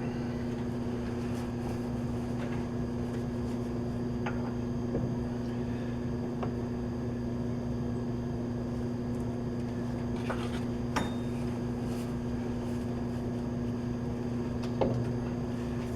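Light metal clinks and knocks, a few seconds apart, as a cast-iron lathe steady rest is slid and set into place, over a steady electric hum.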